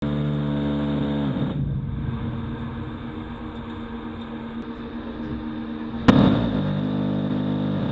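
Phalanx close-in weapon system's 20 mm six-barrel Gatling gun firing bursts, heard as a rapid-fire buzz. The first burst cuts off and winds down about a second in. After a few seconds of wind and hum, a sharp blast about six seconds in starts a second burst, which runs on to the end.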